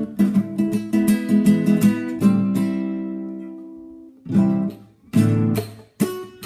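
Acoustic guitar strummed in quick mariachi-style chords. About two seconds in, one chord is left to ring and fade away, then the strumming starts again in short, clipped bursts.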